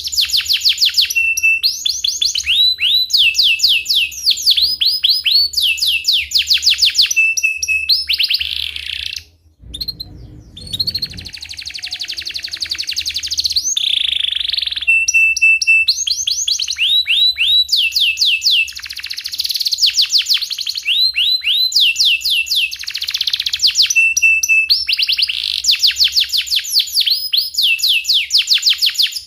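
Domestic canary singing a long song of rapid repeated chirps and rolling trills, the series coming one after another almost without a break. About ten seconds in, the song pauses briefly under a short low rumble, then resumes.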